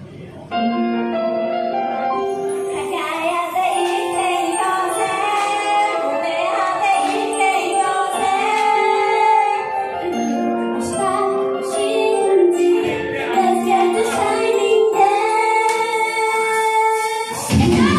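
Idol-pop song played over the PA system, beginning about half a second in: female voices sing a slow melody over a chiming, bell-like backing track. Near the end a louder, fuller backing comes in.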